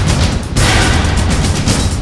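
Loud intro theme music with a heavy bass, and a rush of noise swelling in about half a second in.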